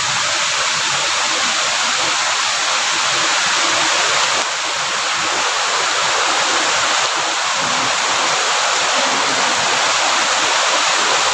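Loud, steady rush of flowing stream water, an even hiss without rhythm that dips slightly about four and a half seconds in.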